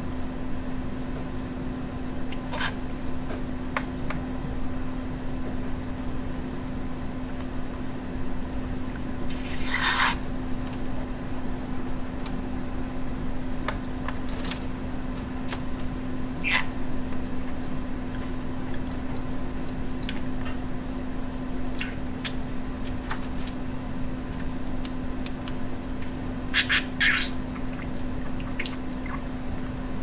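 Budgerigar making scattered short chirps and clicks a few seconds apart, the loudest a harsh burst about ten seconds in and a pair near the end, over a steady low hum.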